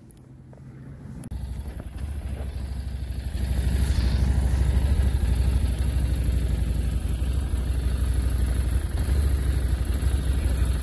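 Motorcycle engine coming in suddenly about a second in and then idling steadily with a low rumble, louder from about three seconds in.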